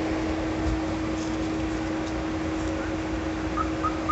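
Steady street and vehicle noise with a constant hum underneath. Three short high chirps come one after another near the end.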